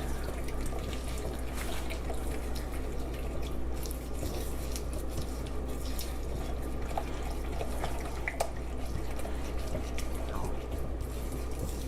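A utensil stirring an egg into a creamed butter-and-sugar mixture in a bowl: a continuous wet squelching with many small clicks and scrapes.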